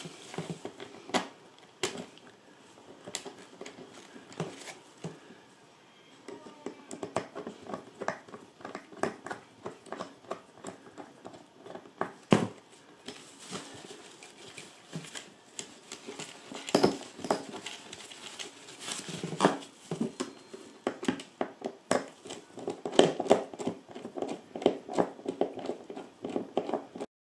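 Suitcase fabric liner rustling as hands work inside it, with irregular clicks and taps from the handle bracket and its screws being lined up and threaded. The handling gets busier in the second half.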